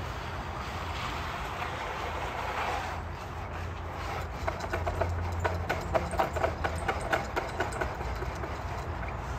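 An engine idling steadily with a low hum. About halfway through comes a run of quick clicks and scrapes, roughly four a second, from hand tools working the ground.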